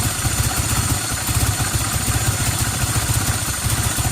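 Toyota Celica Alltrac's 3S-GTE turbo four-cylinder idling rough, with an uneven low pulsing, while its air flow meter is disconnected. The owner suspects a vacuum leak behind the rough idle.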